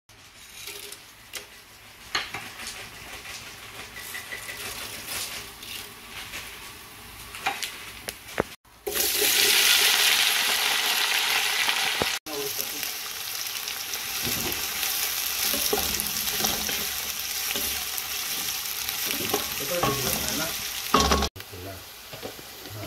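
Cooking oil crackling quietly in a pot, then after a cut a sudden loud sizzle as sliced onions fry in the hot oil. The onions keep sizzling as they are stirred, with scrapes and knocks of a spatula against the pot.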